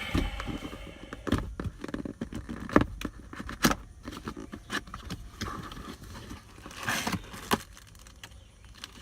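Handling noise from working on a car stereo install: irregular clicks, knocks and rattles of hard plastic and metal parts, with a few short scrapes and rustles.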